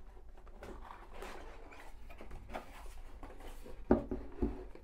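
Cardboard motherboard box being opened by hand: the lid scrapes and slides for a few seconds, then two knocks about half a second apart near the end as the lid comes open.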